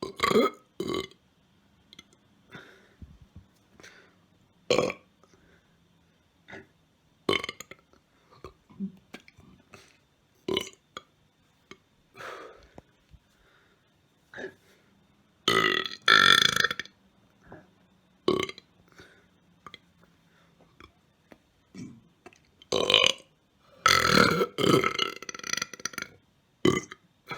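A man burping loudly over and over: a string of about a dozen short burps, with two longer, louder ones, one about halfway through and one near the end.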